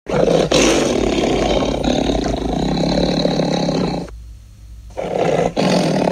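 Roar sound effect of the fictional dinosaur Arkosaurus: one long roar lasting about four seconds, then after a short pause a second roar about five seconds in.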